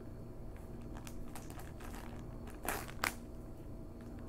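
Plastic shrink wrap crinkling and crackling as fingers pick at it on a floppy disk package, with two louder crackles about three seconds in.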